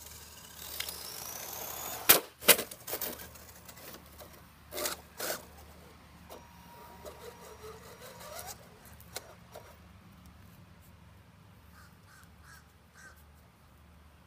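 Radio-controlled model car driving on pavement. Its motor whines up in pitch about a second in, then two loud sharp knocks as the car bumps. Scattered clicks, knocks and a gliding whine follow, and the sound is quieter in the second half.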